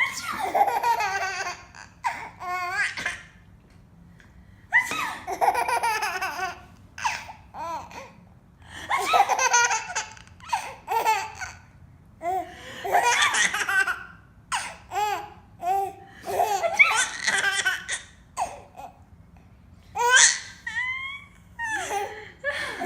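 A person laughing uncontrollably in repeated fits, each a few seconds long, with short breaks for breath between them.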